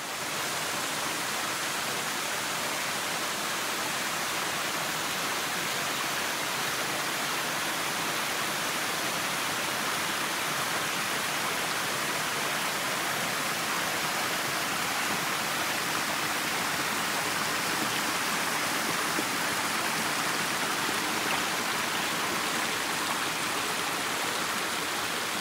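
A small mountain stream rushing and splashing over rocks and a jam of fallen logs in a little cascade: a steady, even rush of water.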